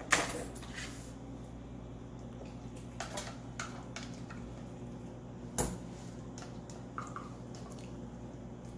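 Spatula and measuring cup knocking against a stainless steel mixing bowl while mayonnaise is scraped in: a sharp clink with a short ring at the start, a few soft taps around three seconds in, another clear clink about five and a half seconds in, and light taps near the end.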